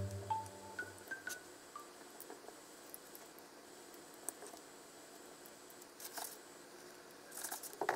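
Soft clicks and light scrapes of wooden chopsticks against a ceramic dish and wooden bento boxes as food is lifted and set down, with brief rustles about six seconds in and again near the end.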